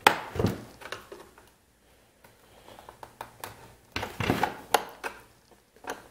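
Flathead screwdriver working a long, stubborn screw out of a hedge trimmer's plastic housing: sharp clicks, scrapes and knocks of the metal tip and the plastic shell. They come in a cluster at the start and another about four seconds in, with a quieter stretch between.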